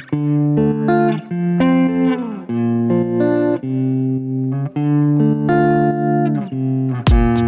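Background music: a melody of plucked guitar notes, with a drum beat coming in about seven seconds in.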